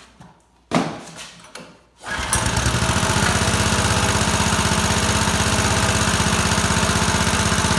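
Small Champion single-cylinder go-kart engine being pull-started on its new recoil starter: a short burst about a second in, then it catches about two seconds in and runs steadily with an even firing rhythm.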